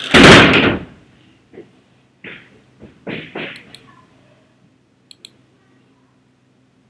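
A loud, brief noise close to the microphone, then a few short scuffing noises, and two faint computer mouse clicks about five seconds in.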